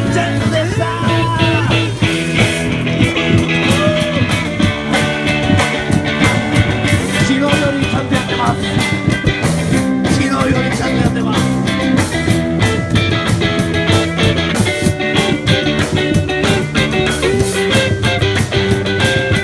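Live rock band playing, with a drum kit keeping a steady beat under sustained guitar notes.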